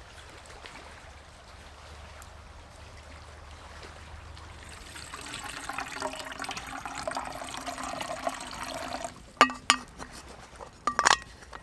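Water poured from an aluminium bottle into a stainless steel pot, the pitch of the pour rising as the pot fills. Near the end, several sharp metal clinks.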